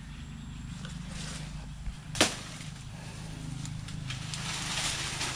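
A single sharp knock about two seconds in, over a steady low background hum.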